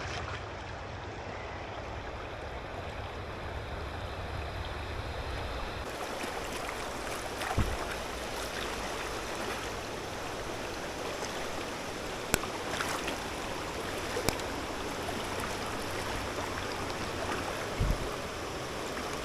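Mountain stream water flowing steadily, with a few short knocks scattered through it.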